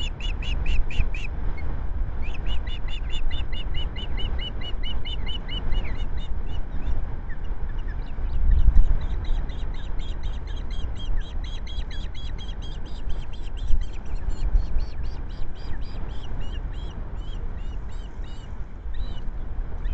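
Ospreys calling: long runs of short, high piping chirps, several a second, with short breaks near the start and about a third of the way in, then running on busily as a trout is brought to the nest. A low wind rumble on the microphone goes on underneath, with a louder rush about nine seconds in as the male lands.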